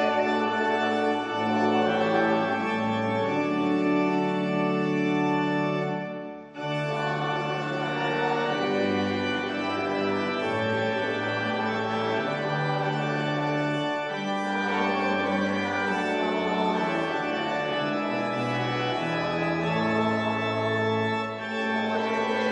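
Church organ playing a hymn in slow, sustained chords over a moving bass line, with a brief break between phrases about six and a half seconds in.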